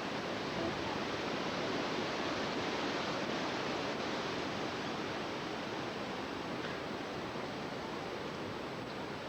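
Steady rushing of strong storm wind through trees, the tail end of a hurricane.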